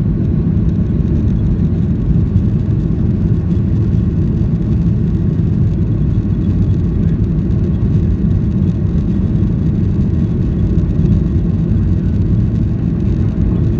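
Cabin noise inside a Boeing 737-800: a steady low rumble from its CFM56-7B jet engines and the airflow, loud and unchanging.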